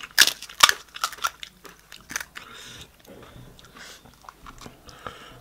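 Hard, crisp pani puri shells cracking as fingertips break through their tops. There are several sharp cracks in the first second or so, then fewer and softer crackles.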